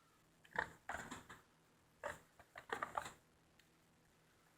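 Faint scattered rustles and clicks of a small cardboard box being opened and handled, in a few short clusters.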